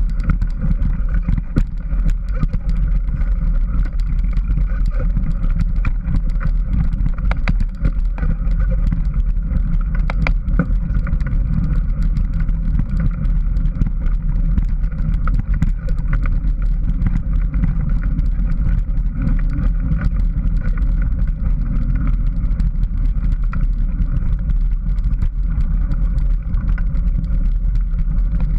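Steady rumble and rush of a mountain bike ride on a dirt trail, picked up by the rider's camera: wind buffeting the microphone and tyres rolling over the ground, with scattered clicks and rattles from bumps.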